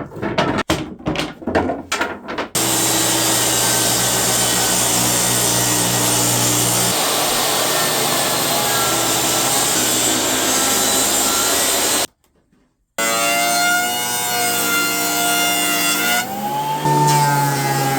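Woodworking tools working wood. First come a few irregular sawing or rasping strokes, then a power tool runs steadily through the wood. After a second's break, a machine runs with a steady whine that rises slightly near the end.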